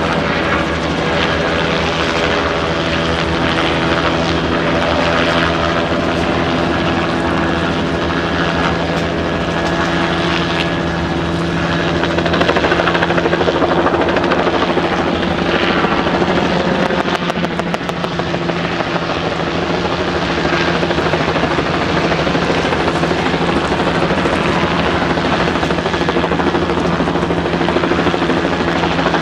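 Steady engine drone with a constant hum and a faint low chopping throb, a little louder about halfway through.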